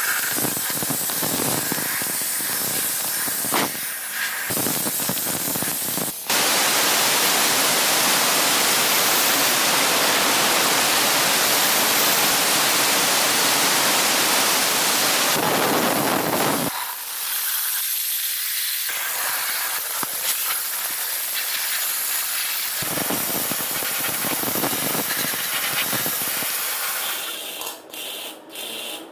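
Steady spraying hiss, loudest and most even from about six to sixteen seconds in, with quieter hissing around it and a few clicks near the end.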